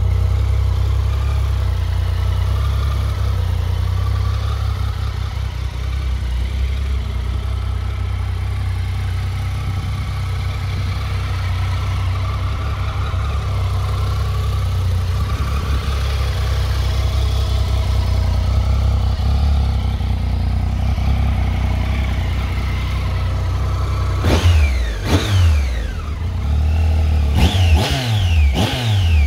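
Triumph Tiger 800 XRT's three-cylinder engine idling steadily, then revved up and dropping back several times in quick succession near the end.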